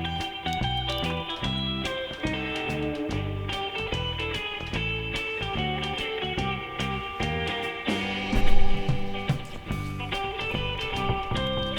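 Background instrumental music with guitar over a steady, repeating bass rhythm, with a louder low thump a little past the middle.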